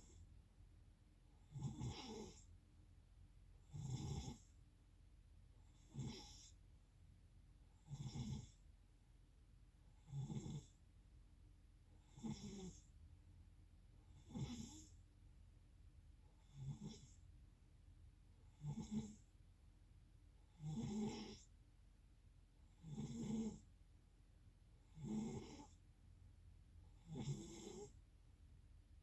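A sleeping person snoring in a steady, even rhythm, about one snore every two seconds.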